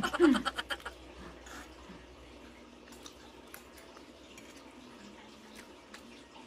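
Faint, wet eating sounds: chewing and mouth noises, with scattered light clicks of cutlery on a plate.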